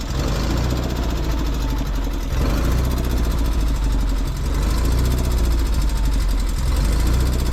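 Engine of an engine-driven portable welder running steadily at constant speed, with an even, fast firing pulse.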